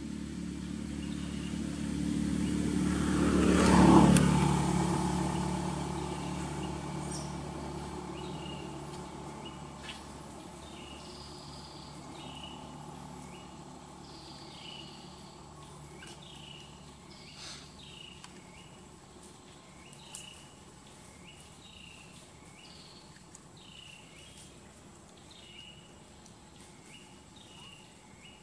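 A motor vehicle passes by, growing louder to a peak about four seconds in and then fading over several seconds. After it, a bird calls over and over in short calls, about one a second.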